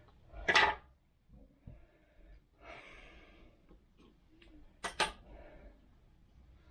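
A short, loud breath-like rush of air about half a second in and a softer one around three seconds, then two sharp clicks in quick succession about five seconds in.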